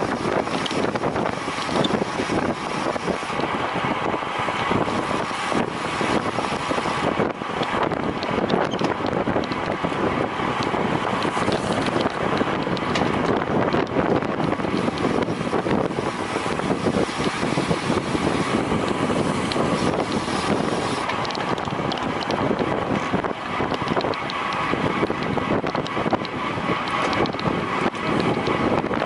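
Steady wind rushing over the microphone of a camera carried by a cyclist riding at race speed, mixed with bicycle tyre and drivetrain noise.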